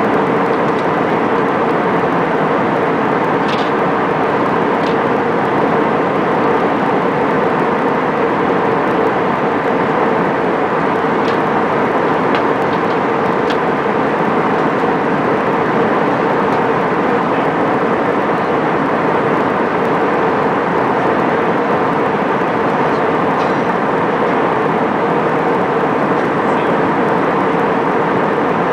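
Steady cabin noise of a jet airliner in flight: an even rush of engine and air noise with a constant hum, and a few faint clicks.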